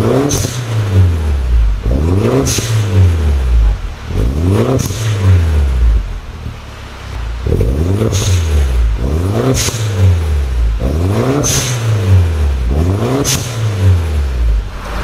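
Mini Cooper S Clubman R55's turbocharged 1.6-litre four-cylinder revved repeatedly while standing still, each rev rising and falling about every two seconds, with a short sharp noise at the top of most revs. It breathes through a catless downpipe that replaces the catalytic converter.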